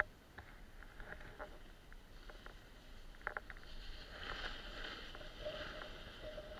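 Snowboard sliding and scraping over snow, with scattered clicks from the handheld camera pole. A steady hum joins about five seconds in.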